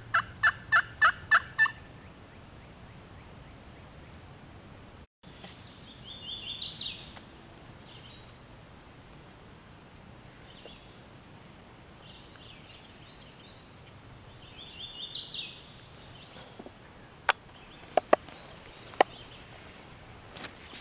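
Turkey hen yelps, about seven evenly spaced notes in quick succession at the start, made on a turkey call. Two shorter, higher calls follow later, and a few sharp clicks come near the end.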